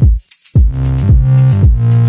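Background electronic music: deep kick drums that drop in pitch, a bass line, and a fast, steady hi-hat pattern.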